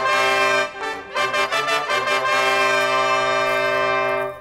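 Brass fanfare of trumpets and trombones: a couple of held notes, a quick run of shorter notes, then one long held chord that stops abruptly near the end.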